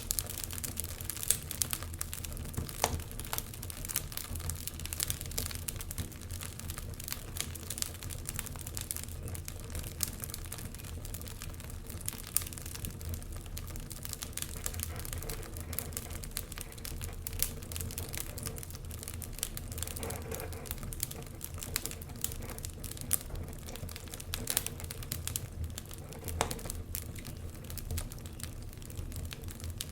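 Wood fire crackling in a fireplace: frequent small sharp pops and snaps over a steady low rumble.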